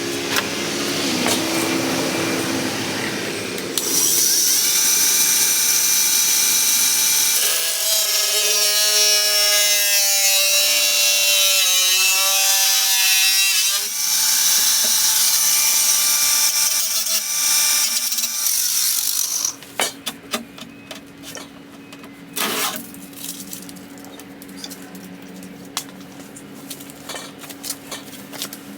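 Electric power tool cutting along a marked line, its motor pitch dipping and recovering as it bites under load. It stops about two-thirds of the way through, followed by lighter clicks and knocks.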